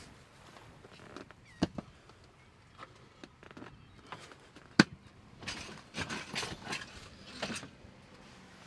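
Folding camp cot being assembled by hand: its metal end bars sliding into the fabric sleeves and snapping onto the leg brackets, with a few sharp clicks and clacks, the loudest about five seconds in, followed by scraping and rustling.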